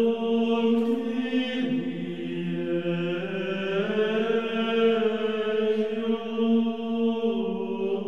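Background music: a slow chant of long held notes, the pitch stepping to a new note every second or two.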